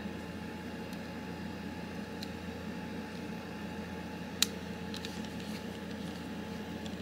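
Precision screwdriver bit clicking against a small Torx screw as it is turned into the back spacer of a Paramilitary 2 folding knife. There is one sharp click about four and a half seconds in and a few faint ticks after it, over a steady low room hum.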